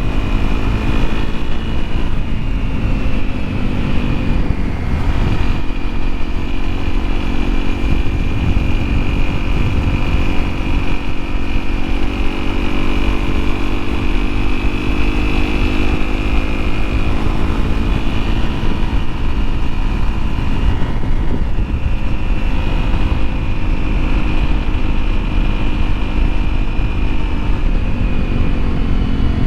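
Honda CRF250L's single-cylinder four-stroke engine running while the bike is ridden, its pitch rising and falling a few times with the throttle over a dense low rumble.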